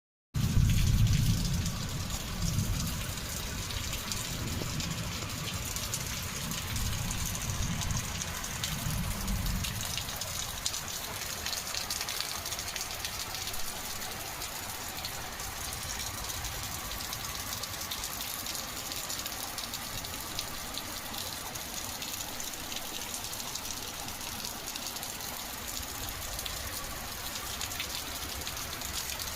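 Steady rain falling, a continuous hiss with many small drop ticks. A low rumble sits under it for roughly the first ten seconds, then stops.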